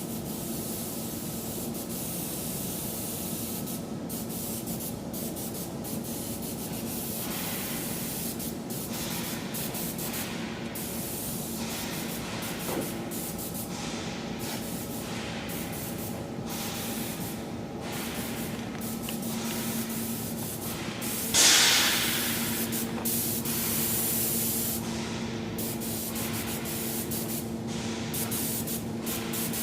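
Paint spray gun coating pipes, hissing in repeated short and long passes over a steady machine hum, with one loud burst of spray about three-quarters of the way through.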